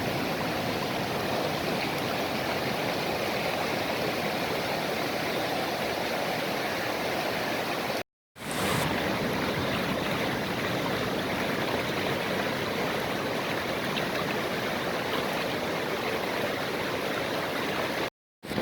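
Rushing floodwater of the swollen Godavari river: a steady, even roar, broken twice by brief dropouts.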